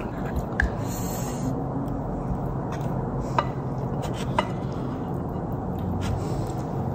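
A few light clinks of an eating utensil against a dish over a steady low room hum: one about half a second in and two more about a second apart near the middle.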